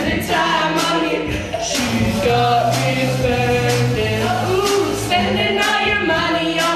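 Karaoke backing track with a steady beat, with teenage girls singing along through a microphone.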